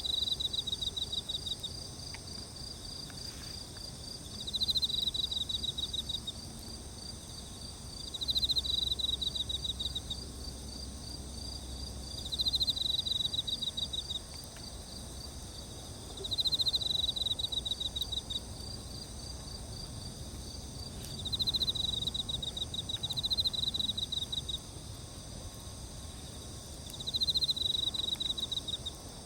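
Night insects singing: a pulsed, rattling trill about two seconds long repeats roughly every four seconds, over a steady high drone of other insects.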